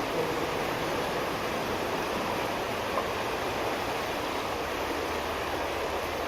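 Steady rush of the River Medlock's water flowing through its culvert.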